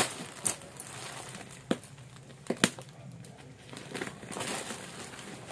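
Plastic parcel wrapping crinkling as it is handled and cut open with scissors, with a few sharp clicks in the first three seconds.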